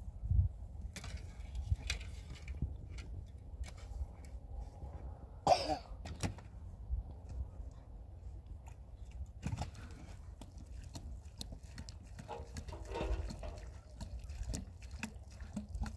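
Shovel digging and scraping dry, stony soil in a run of irregular scrapes and knocks, then softer handling of the soil, over a steady low rumble. A short loud cough-like sound comes about five and a half seconds in, and a brief pitched call near the end.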